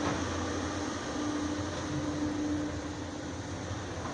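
Caterpillar CAT 320D excavator's diesel engine running under digging load, a steady low drone with a whine that fades out and back in.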